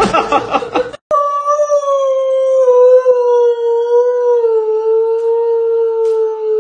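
A dog howling: one long, unbroken howl that starts about a second in and slowly slides down in pitch.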